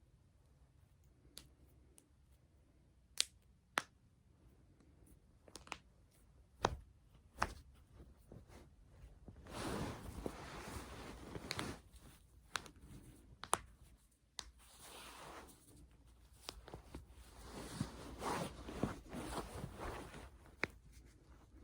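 Joints cracking under chiropractic-style manipulation: a string of sharp, scattered pops, some much louder than others, with stretches of rustling between them.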